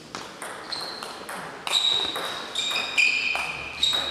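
Table tennis ball being served and then hit back and forth: a run of sharp clicks off the bats and table, coming roughly every half second and getting louder, several of them with a short high-pitched ping.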